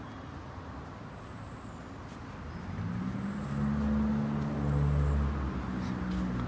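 A motor vehicle's engine running, a low rumbling hum that swells louder about two and a half seconds in and eases again near the end.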